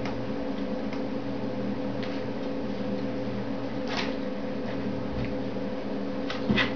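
Steady low mechanical hum, with a few faint rustles and a slightly louder stir near the end as the puppies shift on the bedding.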